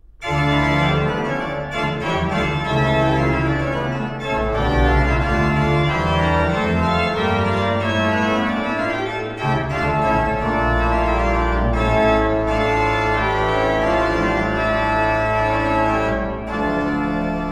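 Organ music: full sustained chords over long held low bass notes, the harmony moving every second or so.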